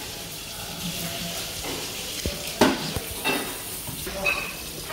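Hands mixing and squeezing maize-flour dough in a steel pot: a steady crumbly squishing, with a few sharp knocks, the loudest just past halfway through.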